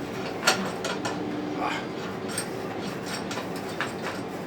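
Small metal hardware clicking and clinking as washers and nuts are handled and fitted onto bolts, with one sharper click about half a second in and lighter ones following.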